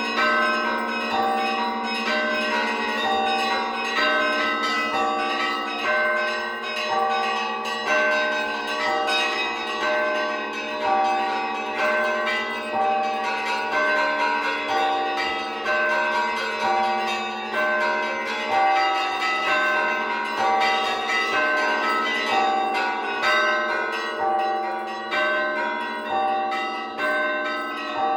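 Russian Orthodox church bells rung by hand in a festive peal. The small bells repeat a short rhythmic figure about every two seconds over the steady hum of a deeper bell.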